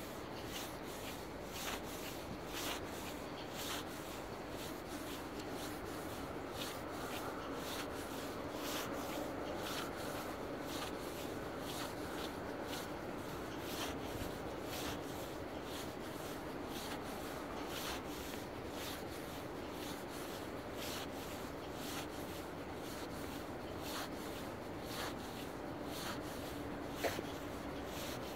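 Footsteps on asphalt at a steady walking pace, about two steps a second, with a steady low hum behind them.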